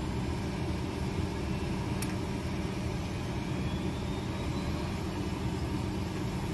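Steady low rumble and hum of a parked airliner heard at its open cabin door, with a single faint click about two seconds in.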